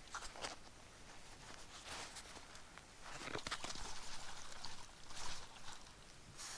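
Rustling and light clicks of gear being handled, with a louder stretch of rustling about three seconds in that lasts a couple of seconds.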